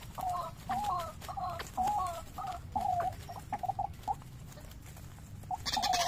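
White-breasted waterhen calling over and over, about two calls a second. About three seconds in the calls turn into shorter, quicker notes, then stop. Near the end there is a loud rustling flurry as the calling starts again.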